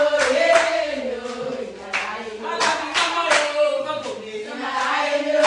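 A group of women singing together with hand clapping: sustained, gliding sung notes over repeated sharp claps.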